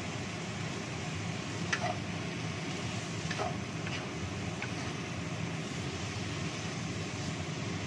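Shredded cabbage and carrot stir-frying in a wok over a gas flame: a steady sizzling hiss, with four short knocks of the wooden spatula against the pan in the first five seconds.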